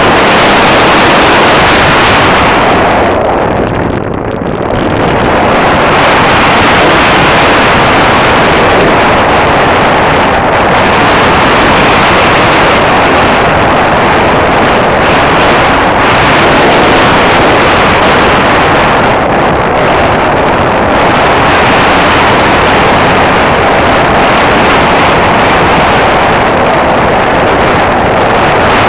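Loud, steady rush of airflow and propeller-aircraft noise picked up by a camera mounted on the aircraft in flight, easing briefly about four seconds in.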